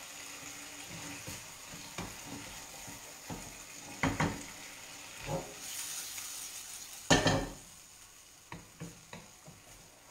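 Oats sizzling in a frying pan on a gas burner while a wooden spoon stirs and knocks against the pan. A loud clatter of the pan about seven seconds in, after which the sizzle fades and a few lighter spoon taps follow.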